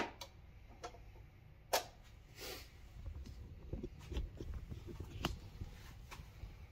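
Scattered light clicks and taps as a used metal head gasket is handled and set against the deck of an engine block, the sharpest tap about two seconds in, with low handling rumble in the middle.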